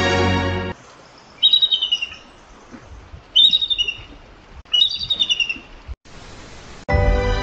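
Bald eagle calling: three bursts of rapid, high-pitched chirping notes, each burst a quick string of piping notes that slide slightly downward. This is the bald eagle's thin, chattering call.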